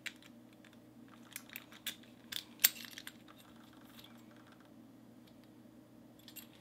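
Key and round brass-bodied American Lock padlock being worked by hand: a run of small metallic clicks and key jingles as the key goes in and turns and the shackle is worked, the sharpest click about two and a half seconds in, then only a few faint ticks.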